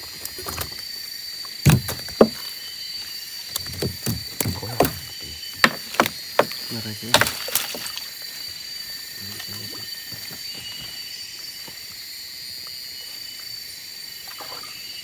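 Knocks and thumps in a small boat as a gill net is hauled in and fish are picked out of it and dropped into the hull, coming thick through the first half and then easing off. A steady high-pitched hum runs underneath.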